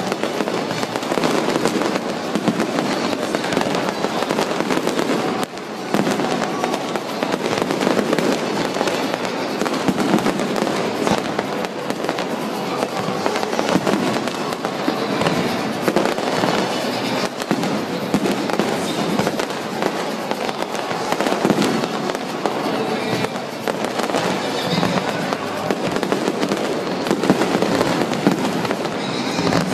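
Fireworks display in a continuous barrage of bangs and crackling, with a brief lull about five seconds in, over music.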